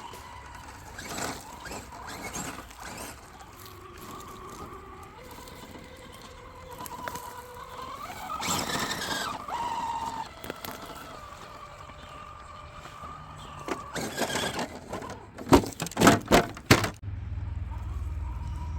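Axial SCX10.2 Deadbolt RC crawler driving, its brushless motor giving a thin whine that rises and falls with the throttle, with rushes of tyre and drivetrain noise. Near the end come a few sharp, loud knocks, the loudest sounds here.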